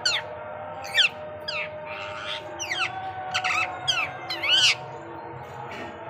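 Indian ringneck parakeet giving a run of shrill, downward-sliding squawks, about one or two a second.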